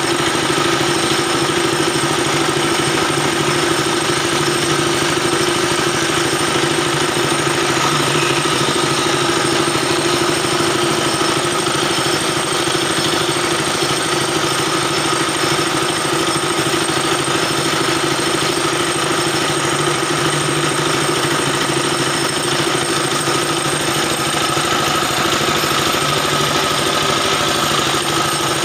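A 10 HP single-cylinder diesel engine running steadily under load, belt-driving a 19 mm broom-handle dowel machine whose cutter heads spin as wooden sticks are fed through, with a steady whine over the engine's knock.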